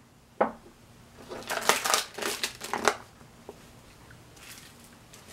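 A single click, then about two seconds of crinkling and rustling of packing wrap being handled, with a little more faint rustling near the end.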